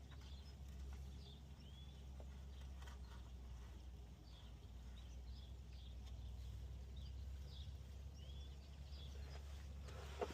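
Faint bird chirps, short calls repeating irregularly over a steady low background hum, with a single click near the end.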